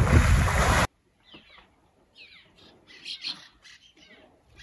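A person hitting the water after a cliff jump: a loud splash and rush of spray that cuts off suddenly just under a second in. Faint bird chirps follow.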